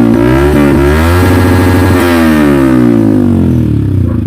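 Yamaha XSR155's single-cylinder engine through an SC Project aftermarket exhaust, revved once from idle to a peak about two seconds in, then dropping slowly back to idle.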